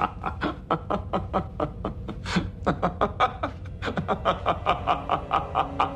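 A man laughing wildly and without a break, a rapid string of short 'ha' bursts at about four or five a second. A low held musical tone comes in near the end.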